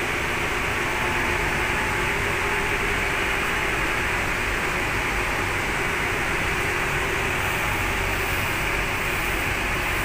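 Large commercial front-loading washing machines running: a steady, even noise with a couple of faint steady tones in it.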